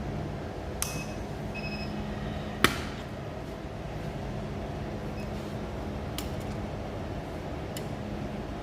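A few sharp clicks of small hard objects, the loudest about two and a half seconds in, with a few brief faint beeps, over a steady low hum.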